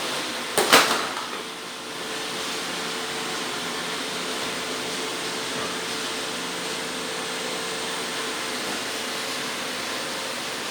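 Several robot vacuums running together, a steady whir with a faint hum in it. A couple of sharp knocks just under a second in are the loudest sound.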